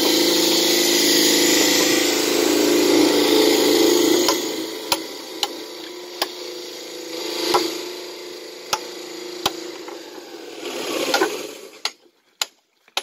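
A machine runs steadily and loudly, then dies away about four seconds in. After that, a hammer strikes the edges of Shahabad limestone slabs in sharp single knocks, about one every second, dressing the slab edges.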